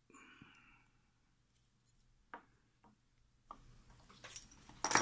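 Sparse small clicks of metal tweezers and tiny lock pins against a plastic pin tray, then a louder cluster of knocks and rubbing near the end.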